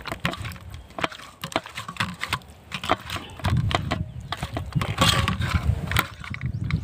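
A hand squeezing and turning fish pieces in a wet masala and cornflour marinade on a steel plate: irregular wet squelches, slaps and clicks that get busier and louder about halfway through.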